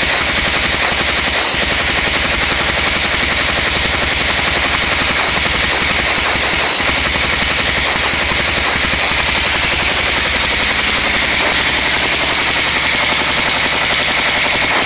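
Home-built propane-fuelled pulse jet engine with a Tesla-valve intake running steadily: a loud, rapid, unbroken stream of combustion pops.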